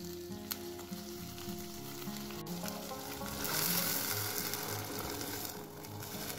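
Food sizzling as it fries in hot oil in a pot or pan, growing louder for about two seconds midway, over background music.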